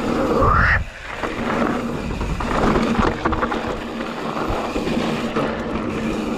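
YT Jeffsy mountain bike rolling fast down a dry, hard gravel trail: tyres crunching and rattling over loose stones, with wind on the microphone. About half a second in there is a brief rising screech, then the noise eases for a moment.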